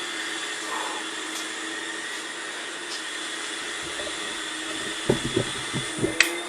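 Steady whirring of a small electric motor, with a few light knocks and one sharp click in the last couple of seconds.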